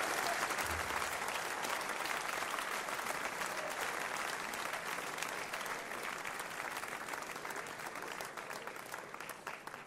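Audience applauding. The applause slowly dies down, thinning to separate claps near the end.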